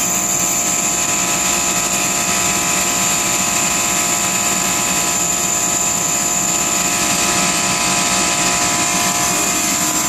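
Refrigeration skid with two scroll compressors running: a steady, loud machine hum with several constant tones and a high-pitched whine over it.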